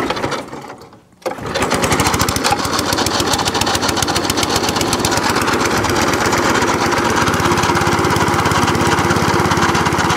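Petrol engine of a Qualcast cylinder lawnmower starting up about a second in, then running steadily with an even firing beat.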